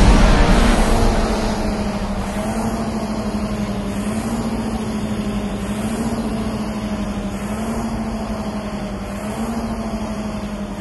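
Rowing machine flywheels running with a steady hum that rises slightly in pitch and loudness every couple of seconds, once per stroke.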